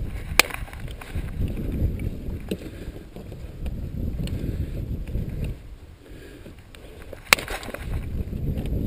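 Dry twigs and grass rustling as they are pulled up and gathered by hand, with two sharp snaps, one just after the start and one near the end.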